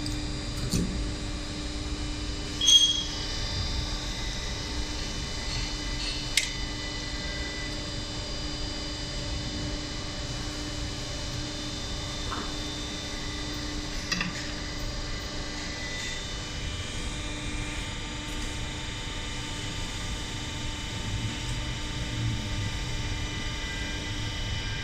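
Steady electrical machine hum made of several fixed tones, with a few short sharp clicks; the loudest click comes about three seconds in.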